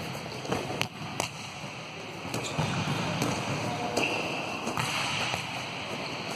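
Volleyball being struck and spiked in a rally drill: a series of sharp, irregular smacks of hands on the ball and the ball hitting the court, echoing in the hall.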